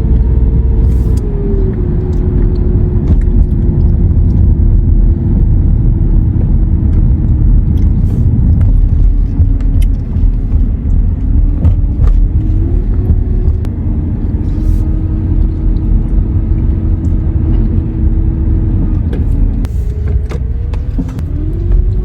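A vehicle engine running under way over a heavy low rumble. Its note drops in steps early on, climbs again about halfway through, falls near the end and then rises.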